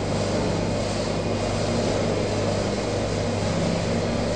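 Electric ice cream machine running, a steady motor hum with a hiss, as it churns and freezes vanilla ice cream mix in its steel bowl.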